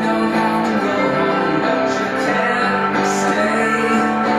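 Music playing: a steady run of held, layered tones with no speech over it.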